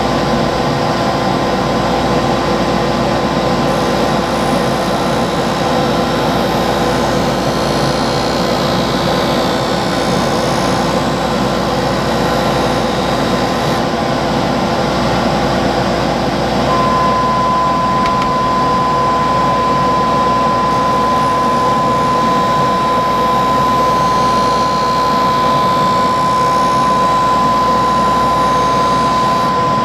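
Skate sharpening machine's motor and grinding wheel running steadily while a steel skate blade is ground against the wheel. A steady high whine joins about halfway through.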